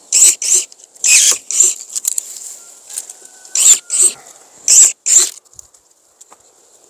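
Hand pruning saw cutting through a Japanese apricot (maesil) branch: short rasping strokes, mostly back-and-forth pairs, in four bouts with brief pauses between them.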